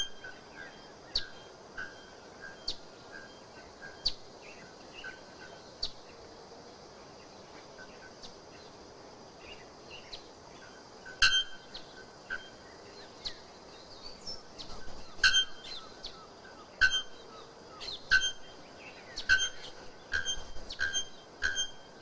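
Male bare-throated bellbird calling with short, sharp, ringing notes. They come singly, a second or more apart, with a gap of several seconds in the middle. Near the end they come in quicker, louder series of about two a second.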